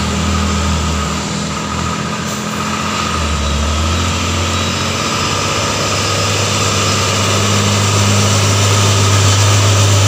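Hino 500 dump truck's diesel engine running at a steady low drone as the truck approaches, growing louder toward the end.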